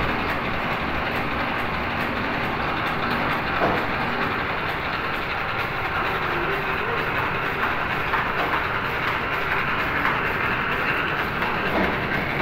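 Toffee wrapping machine running, a steady, dense mechanical clatter of its rapid wrapping cycle.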